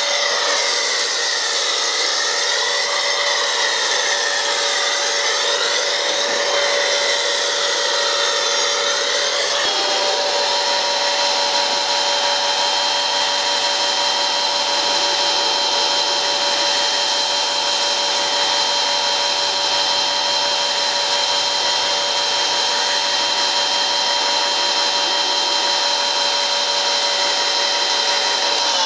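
Pressure washer running with a foam cannon attached, spraying snow foam: a steady motor-and-pump whine over the hiss of the spray. The sound wavers for the first ten seconds, then changes about ten seconds in and holds steady.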